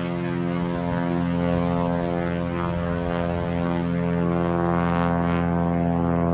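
Seaplane's propeller engine droning steadily at takeoff power during its run across the water, holding one even pitch throughout.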